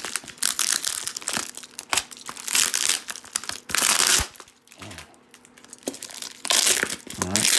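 Taped brown-paper wrapping being crinkled and torn off a package by hand, in bursts of rustling and ripping with a short lull about halfway through.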